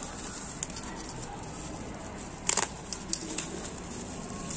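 Bubble wrap crinkling and rustling as it is handled and pulled open, with a cluster of sharp crackles about halfway through.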